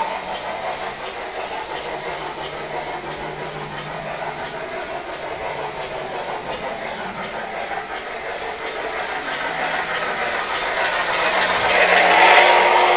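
Lionel O-gauge model trains running on three-rail track: a steady rolling rumble and whir of wheels and motors. It gets louder near the end as a string of Lionel 6446 hopper cars rolls past close by.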